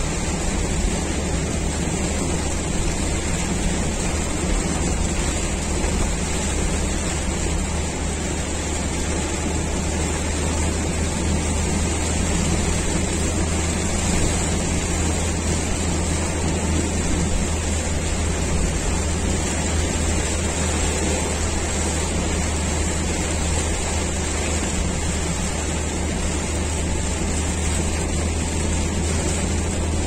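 Rain and wet-road noise heard from inside a moving car's cabin on a highway: an even hiss of rain and spray over a steady low rumble from the tyres and engine.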